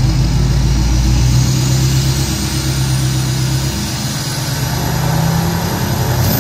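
Ford 6.7 Powerstroke V8 turbo-diesel idling through a 5-inch exhaust, a steady low note that shifts slightly a couple of times.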